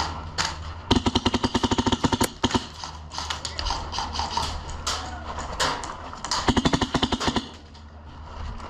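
HPA-powered airsoft rifle firing full-auto: two long strings of rapid, evenly spaced shots, the first about a second in and the second near the end.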